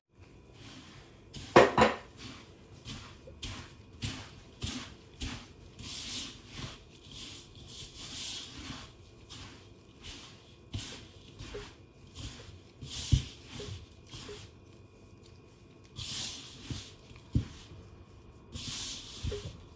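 Gloved hands rubbing and squeezing a damp, crumbly shower-steamer powder (baking soda, citric acid and cornstarch moistened with oil) in a bowl, in short strokes roughly twice a second. One louder knock comes about two seconds in, with a few soft thuds against the bowl later on.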